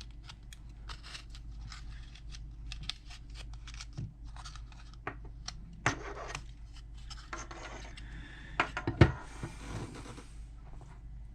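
Small metal lock parts being handled during reassembly of a car hatch lock cylinder: a steady run of light clicks and ticks. There is a louder knock about six seconds in, another about nine seconds in, then a brief scrape.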